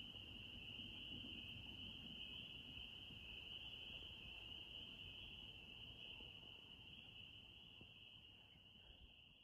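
Faint chorus of spring peepers, many small frogs calling at once and merging into one steady high-pitched ringing that eases off slightly near the end.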